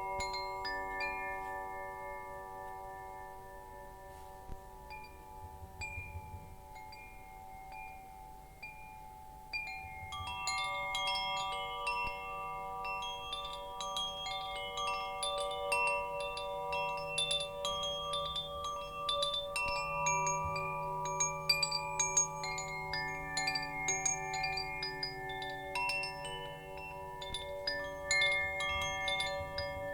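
Wind chimes tinkling, their tones ringing on and overlapping. A sparse, quieter spell with few new strikes gives way about a third of the way in to busier clusters of strikes that continue through the rest.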